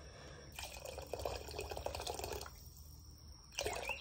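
Chicken stock pouring from a carton into a stainless steel pot of broth for about two seconds, then a short knock near the end.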